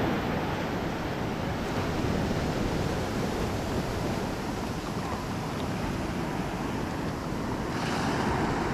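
Ocean surf breaking and washing up over the sand in a steady rush, with a wave's wash swelling louder near the end.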